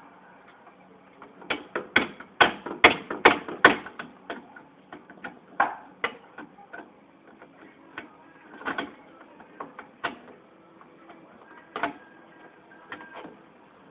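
Sharp metal knocks and clicks from hand tools working at a seized bolt on a car's rear wheel hub. A quick run of about ten strokes comes between about 1.5 and 4 seconds in, then single knocks at uneven gaps.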